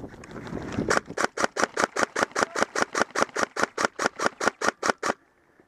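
Airsoft gun firing a steady fast string of about two dozen shots, roughly six or seven a second, for about four seconds before stopping abruptly.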